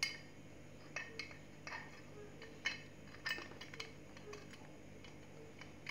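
Light, scattered clicks and clinks of a hand-cranked meat grinder's metal and plastic parts being handled and fitted together, about one every half second to a second.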